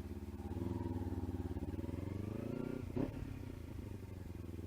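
Kawasaki Ninja 300 motorcycle's parallel-twin engine running at low revs, with the revs lifting slightly a couple of times and a short knock about three seconds in.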